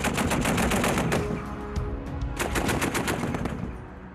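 M2 Browning .50-calibre heavy machine gun firing in bursts, about eight shots a second. One burst runs until just over a second in, and after a lull a second burst starts about two and a half seconds in. The firing fades out near the end.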